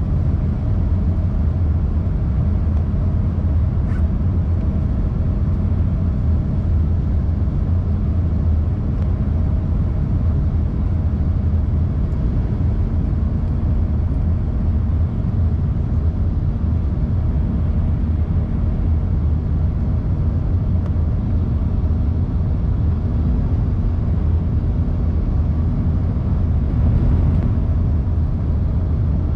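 Jet airliner cabin noise during the descent: a steady low rumble of engines and airflow with a faint even hum over it.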